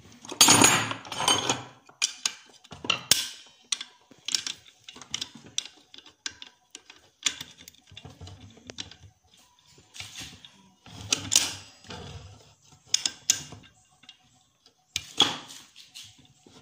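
Irregular metallic clinks and clatters of a box spanner and locking pliers working on a brush cutter's clutch while a clutch shoe bolt is tightened. The loudest clatter comes about a second in.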